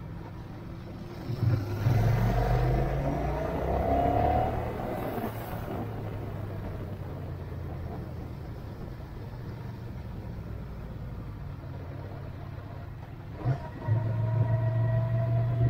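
A vehicle engine picks up about one and a half seconds in and accelerates, its pitch rising, then settles to a steady cruise. Near the end it accelerates again, with a rising whine.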